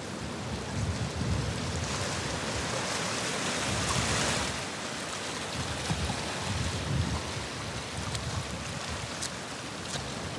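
Surf washing against a rocky shore, a steady rushing noise, with wind buffeting the microphone in irregular low gusts.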